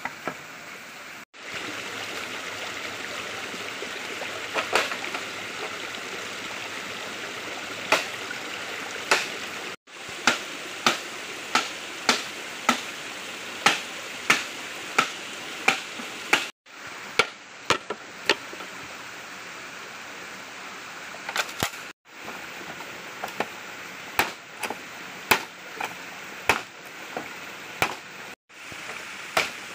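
Machete blade chopping into bamboo: a run of sharp chops about one and a half a second, then scattered lighter strikes, over the steady rush of a stream.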